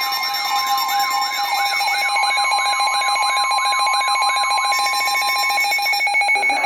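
Emergency alert attention signal: a loud, steady two-tone alarm with a siren-like wail sweeping up and down about three times a second over it. The wail quickens about two seconds in and drops out a little before five seconds, leaving the steady tones alone until they cut off near the end.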